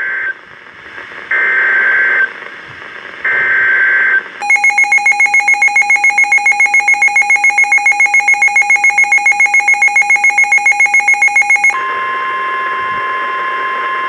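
Midland WR-400 weather radio sounding an emergency alert. First comes the end of one short burst of SAME header data tones, then two more bursts, each about a second long. Next the radio's own alarm beeps rapidly, about seven beeps a second, for about seven seconds, and near the end it gives way to the steady NOAA Weather Radio warning alarm tone.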